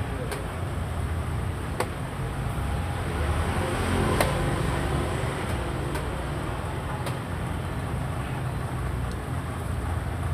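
A xiangqi piece being set down on a wooden board and a chess clock button being pressed: a few sharp clicks, the loudest about four seconds in, over a steady low background rumble.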